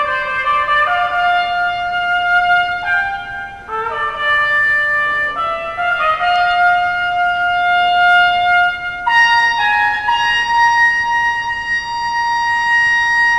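Toyota humanoid robot playing a trumpet: a slow run of long held notes, each lasting one to three seconds before moving to the next pitch.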